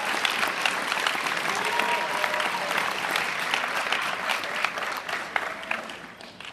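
Audience applauding, a dense patter of many hands clapping with a few voices faintly over it; the clapping dies away near the end.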